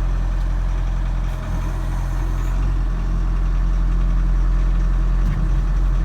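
Bobcat Toolcat 5600's turbocharged Doosan diesel engine running steadily.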